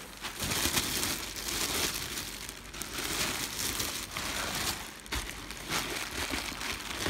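Bubble wrap and clear plastic wrapping crinkling and crackling with many small pops as it is handled and pulled off a telescope's tripod legs.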